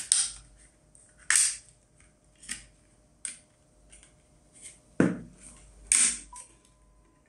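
Irregular sharp clicks and knocks of an external hard drive's casing being taken apart by hand, the two loudest knocks about five and six seconds in.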